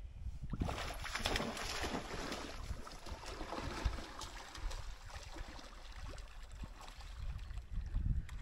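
Water splashing and churning as a dog runs and swims through shallow sea water, starting about half a second in, over a low wind rumble on the microphone.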